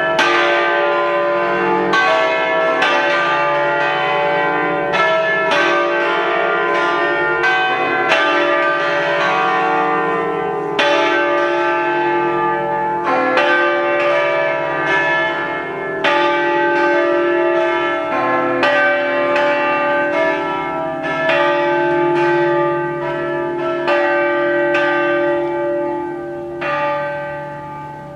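Peal of church bells, the eight-bell ring in C cast by Pasquale Mazzola in 1879, all swinging together in a full peal (distesa). The strokes overlap irregularly and the ringing tones hang on between them. The peal grows quieter over the last few seconds as the bells die down.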